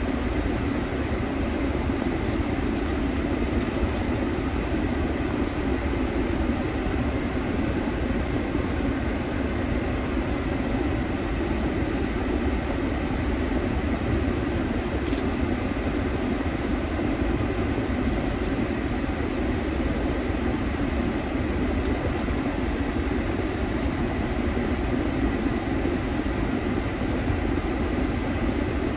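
Steady car noise heard from inside the cabin, a constant low rumble of engine and road with no change in level.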